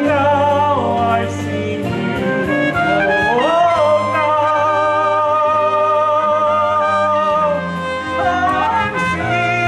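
Live pit band playing the closing bars of a musical-theatre song: a melody line rises about three seconds in and is held with vibrato for several seconds over sustained accompaniment.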